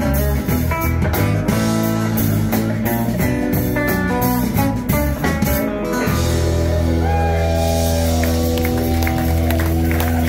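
Live rock band with guitars, bass and drums playing a groove; about six seconds in the drums stop and the band holds a long ringing chord, the close of the song.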